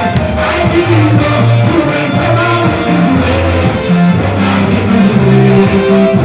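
Live worship band music: electric guitar over a bass line that moves from note to note about every half second, played loud.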